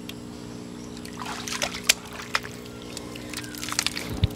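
Wet mud and muddy water being scooped by hand from a shallow dug pit: squelches, drips and small splashes, with a few sharp wet slaps.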